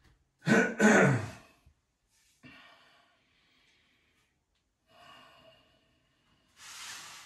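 A man lets out a loud sigh about half a second in, the voice falling in pitch, followed by quieter breaths and a short rush of breath near the end.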